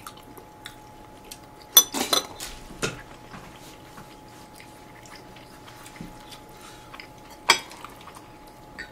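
Metal chopsticks and spoons clinking against ceramic bowls and plates during a meal: a few sharp clinks, the loudest about two seconds in and another near the end, with faint taps between.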